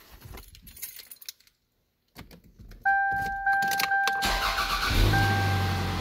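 A 1998 Toyota Camry being started with the key. Keys rattle in the ignition, a steady electronic warning chime comes on, broken by short gaps, and the engine cranks briefly, catches about five seconds in, and settles to idle under the chime.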